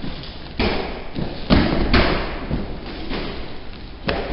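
Heavy thuds of martial artists' bodies and feet striking and falling onto foam floor mats during a sparring demonstration: about four separate thumps, each trailing off with an echo.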